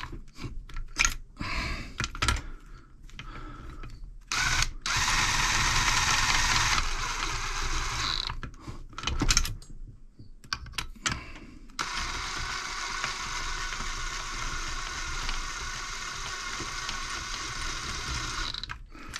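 DeWalt cordless drill fitted with a socket, spinning nuts down onto engine cylinder studs. It is used as a plain drill, not an impact driver. Its motor runs in several short bursts with pauses, then in one longer steady run in the second half.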